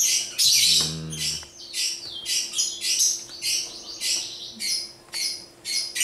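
Lovebird chattering: an unbroken run of shrill squawks and chirps, several a second.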